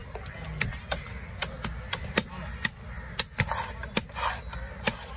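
A large fish-cutting knife chopping diamond trevally pieces on a wooden log block. The sharp knocks come about twice a second with slightly uneven spacing.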